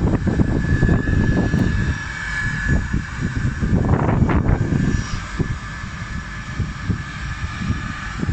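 Airplane engine noise: a steady high whine over a rough low rumble, growing somewhat fainter after about five seconds.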